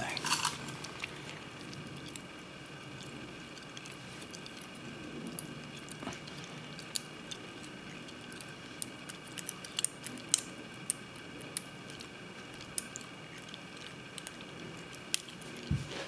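A lock pick working in the keyway of a brass Slaymaker wafer-tumbler padlock: faint scraping with scattered sharp little metal clicks as the wafers are picked. The clicks come more often in the second half.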